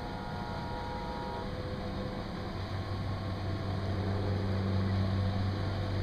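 Engine of a canal water-taxi boat running, a low steady drone that grows louder as the boat approaches and is loudest about five seconds in.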